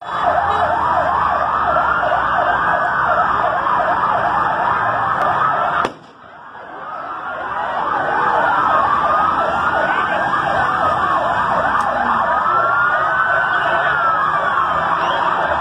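Several emergency-vehicle sirens sounding at once, a fast yelp over slower rising and falling wails. The sound drops away suddenly about six seconds in and swells back up over the next couple of seconds.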